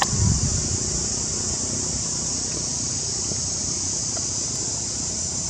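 Steady, high-pitched chorus of insects shrilling, with a brief low rumble near the start.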